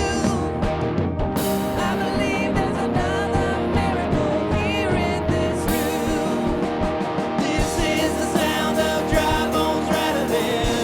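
Live worship band playing a rock-style passage with drums and electric guitar over sustained chords, without clear sung lyrics.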